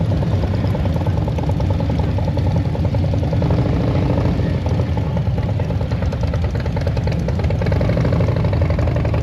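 Motorcycle engines running steadily at low revs, loud.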